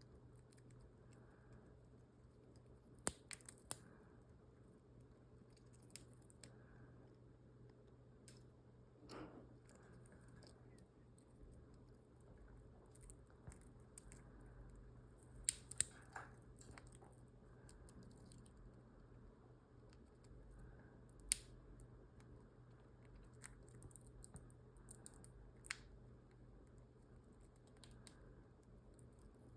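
A parrot cracking and nibbling a sunflower seed with its beak: scattered small sharp cracks and clicks, a few in quick succession, over a low steady hum.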